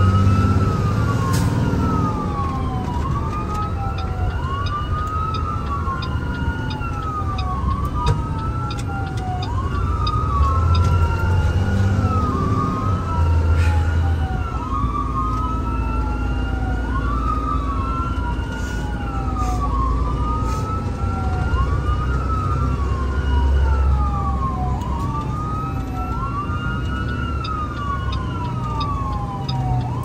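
Electronic emergency siren wailing en route, each sweep rising quickly and falling more slowly, repeating about every second and a half. Underneath is the steady low rumble of the ambulance's engine and road noise, heard from inside the cab.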